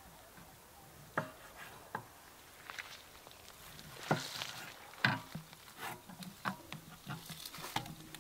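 A kitchen knife slicing lamb kidneys on a wooden chopping board: irregular sharp knocks as the blade strikes the board, roughly one every second, with the loudest about four and five seconds in.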